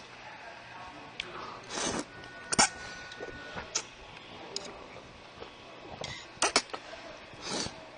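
A person slurping thick whole-wheat udon noodles, with a few noisy slurps and sharp mouth-and-chopstick clicks between them.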